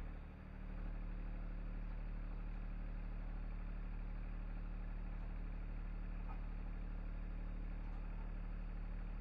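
An engine running steadily, a low even hum, with a brief dip in level just under a second in.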